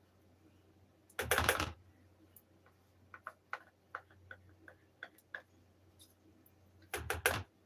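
Butter knife scraping and tapping inside a plastic measuring cup as thick honey is scraped out into a bowl: a scrape about a second in, a run of small light clicks, and another scrape near the end.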